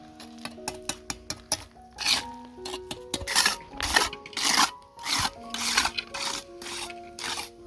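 Rhythmic scraping strokes on a hard surface, about one every half second or so, with a few quick ticks at the start, over background music with held notes.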